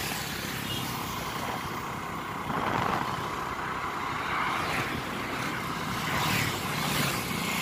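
Steady rush of wind and road noise from a moving two-wheeler, swelling twice as oncoming vehicles pass.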